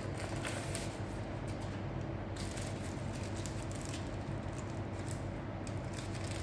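Faint rustling and crackling of paper and plastic packaging being handled as items are taken out of the box, over a steady low background hum.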